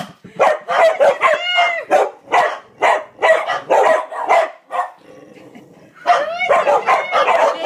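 Two dogs barking rapidly, two to three barks a second, with a drawn-out howling yelp about a second and a half in. The barking drops off for about a second near the end, then starts again with another howl-like yelp and quick barks.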